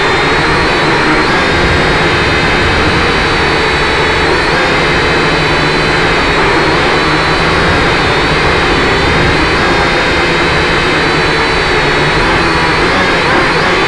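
Radio-controlled model car's motor running steadily close to the microphone, a continuous whine that wavers slightly in pitch as the car drives.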